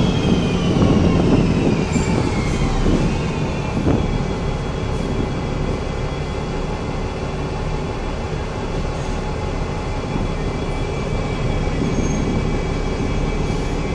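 Inside a city bus on the move: steady engine and tyre noise, with a high drivetrain whine that falls in pitch over the first few seconds as the bus slows, then holds level.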